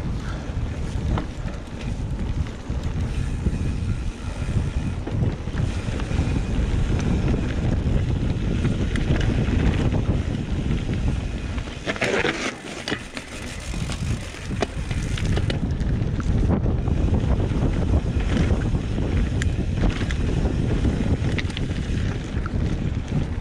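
Wind buffeting the microphone: a rough low rumble that rises and falls in gusts and briefly eases about halfway through.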